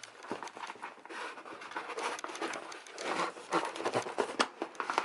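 A hand rummaging inside a subscription box: irregular rustling and crinkling of packaging with small clicks and taps, growing busier about three seconds in.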